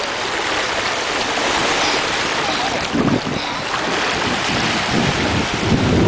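Shallow surf washing steadily over the sand, with wind buffeting the microphone in low gusts about three seconds in and again near the end.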